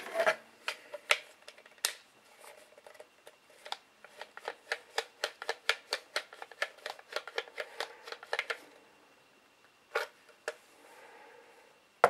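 Small plastic clicks from the Hubsan X4 transmitter's buttons and sticks being worked during calibration. The clicks are scattered at first, then come in a quick run of about five a second for several seconds, with a couple more near the end.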